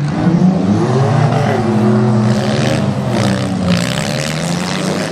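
Several demolition derby cars' engines running together, revving up and easing off with the pitch rising and falling.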